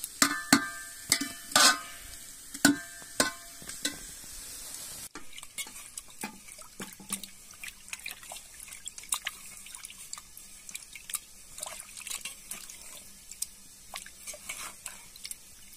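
A metal spoon stirring a sizzling pot, knocking and ringing against the pot's side. After a cut about five seconds in, a hand swishes and squeezes raw beef pieces in a pot of water, with small splashes and clicks.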